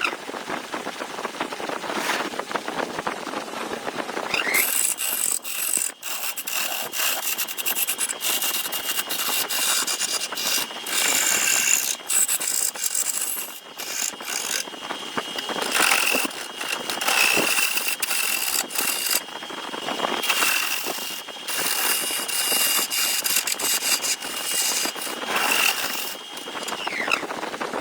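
A handheld electric power tool's motor spins up about four seconds in, runs at a steady high whine while it works wood with a rough scraping, rattling noise, and spins down near the end.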